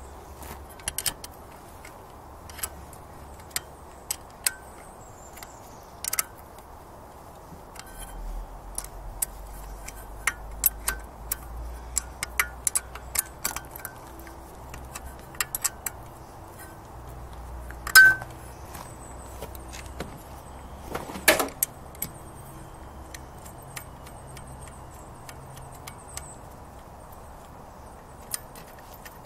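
Metal hand tools clinking and tapping against the lower unit of a Johnson 9.5 HP outboard motor: a long run of irregular, sharp metallic clicks, with two louder clanks past the middle.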